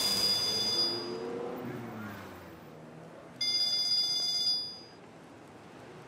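A phone's electronic ringtone ringing in separate bursts of a high, steady multi-tone ring: one fading out in the first second and one lasting about a second near the middle. A faint voice trails off under the first ring.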